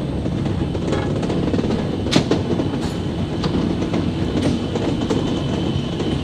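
Nerobergbahn water-ballast funicular car running along its rails: a steady rumble with a few sharp clicks from the wheels on the track, the loudest about two seconds in.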